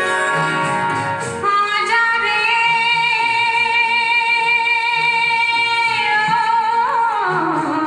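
A vinyl record playing music on a vintage Rotel turntable. A singing voice holds one long note from about a second and a half in, then slides down near the end, over instrumental accompaniment.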